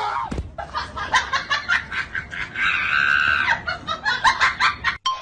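People laughing in quick high-pitched bursts, breaking into a held shriek about three seconds in, then more rapid laughter until the sound cuts off abruptly near the end.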